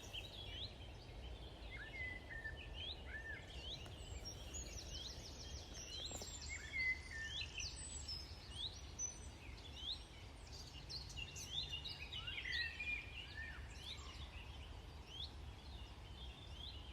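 Several small songbirds chirping and singing, with short upward and downward notes throughout and a quick trill about four seconds in, over a steady low rumble.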